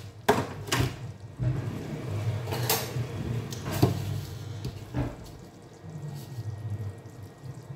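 Thick onion-and-tomato stew simmering in a pot, with about five separate pops as bubbles burst at its surface, over a low steady hum.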